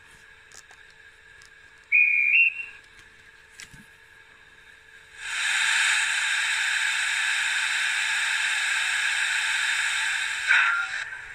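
Bachmann H2 Atlantic model locomotive's factory-fitted DCC sound decoder playing steam sounds through its small onboard speaker. A short two-note whistle sounds about two seconds in, stepping up in pitch. From about five seconds a loud steady hiss of steam runs for about five seconds before dying away, with brief sounds near the end.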